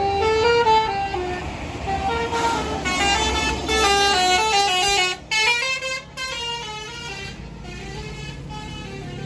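Bus's Basuri multi-tone telolet horn playing a quick tune of short stepped notes over the low rumble of the bus engine. The tune grows fainter about halfway through.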